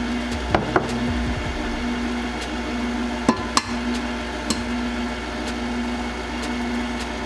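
KitchenAid stand mixer running on low speed: a steady motor hum with the beater turning in the batter bowl. Two pairs of sharp clicks or knocks cut in, about half a second in and again about three and a half seconds in.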